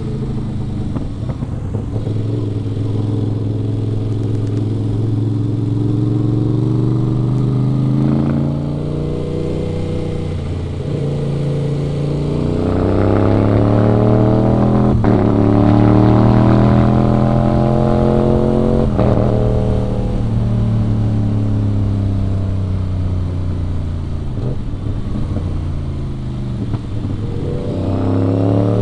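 Aprilia RS 660's parallel-twin engine pulling through the gears while riding, its pitch climbing and dropping back several times. It is loudest in a long rising pull around the middle, and a couple of sharp clicks come at the shifts.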